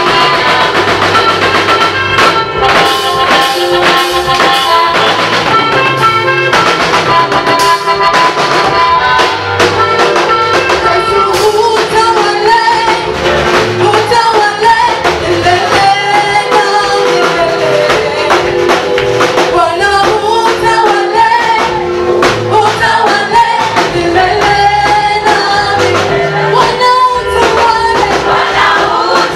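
Gospel praise music with drums and sustained instrumental chords; an instrumental passage gives way to a singing voice about eleven seconds in.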